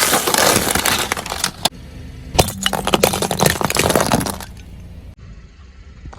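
Loud crunching and cracking of objects being crushed under a car tyre, in two bursts of about two seconds each, with a short pause between them.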